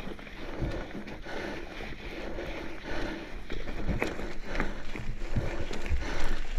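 Mountain bike riding over a dirt trail: tyres rolling over dirt, leaves and roots, with scattered knocks and rattles from the bike and a low wind rumble on the microphone.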